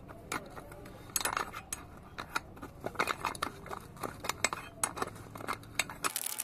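Metal parts and tools clinking and tapping together in irregular sharp clicks, as in hands-on work on a bus brake servo.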